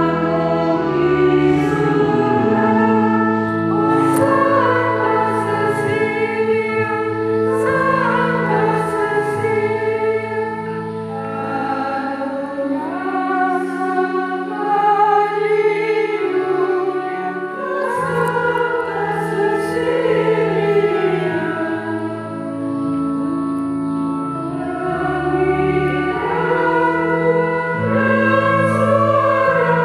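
A group of nuns singing a hymn together, several voices holding notes and moving through the phrases at a steady level.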